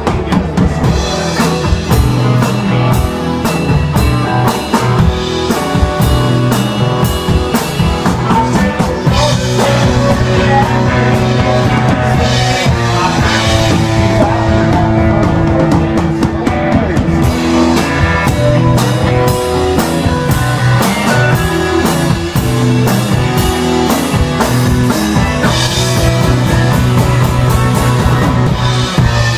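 A live rock band playing an instrumental passage, with a drum kit keeping a steady beat under electric guitars.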